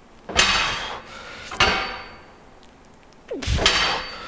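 Steel isometric testing bar knocking against the frame it is racked in as it is pushed up into in a max isometric lunge effort: three sharp metallic clanks, each ringing briefly.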